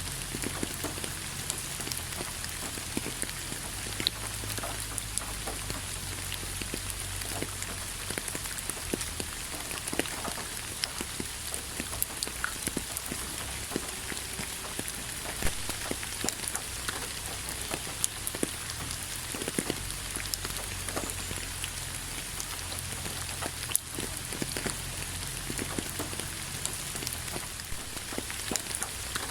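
Steady rain falling: an even hiss with many separate drops ticking sharply on a surface.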